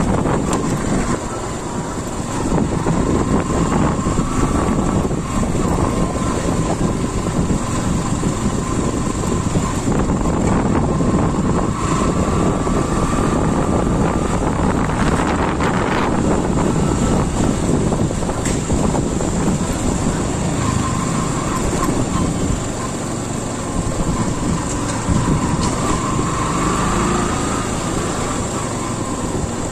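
Heavy wind noise on the microphone of a moving motorbike, with the bike's engine running underneath. A faint whine rises and falls a few times.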